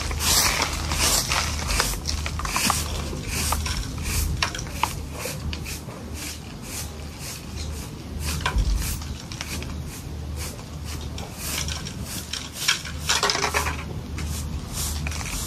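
Hand broom of bundled dry grass sweeping a bare dirt yard: quick scratchy strokes, about two a second, fainter in the middle and louder again near the end.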